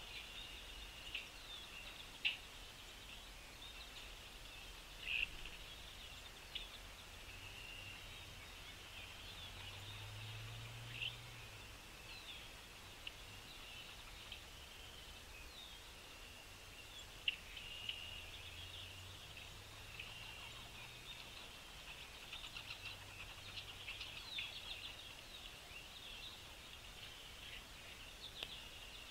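Small songbirds chirping and twittering steadily, with a few sharper single chirps and a run of quicker twittering near the end.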